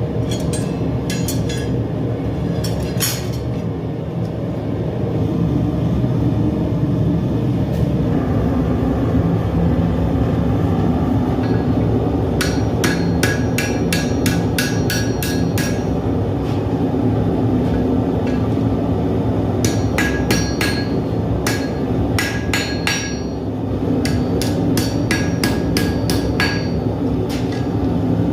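Blacksmith's hammer striking steel on an anvil in runs of quick blows, about three to four a second, each with a short metallic ring, over a steady low rumble.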